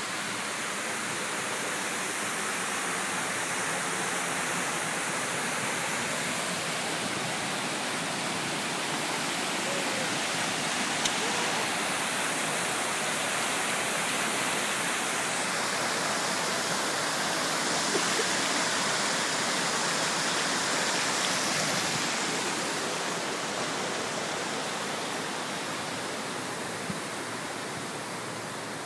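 Water pouring down a stepped cascade and running along a shallow stone-lined stream channel: a steady rush of running water, a little louder in the middle and fading near the end.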